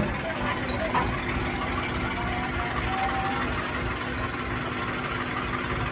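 Hot-air rework station blowing a steady stream of hot air onto a circuit board to melt the solder and lift off an IC, its fan making an even, unbroken noise with a low hum.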